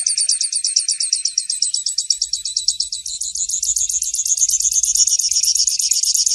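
Canário-tipio (grassland yellow-finch) singing: a long, fast, unbroken trill of high notes, growing slightly fuller about halfway through.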